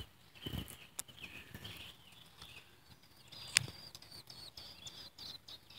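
American robin nestlings begging for food with a run of short high peeps that grows thicker in the second half. A single sharp knock about three and a half seconds in.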